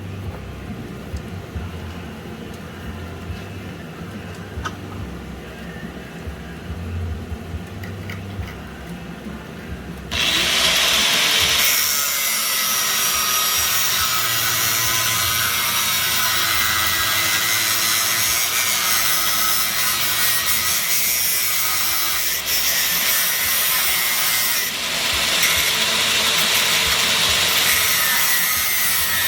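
A low hum, then about ten seconds in a power tool starts up and runs under load for the rest, loud and noisy with a wavering pitch.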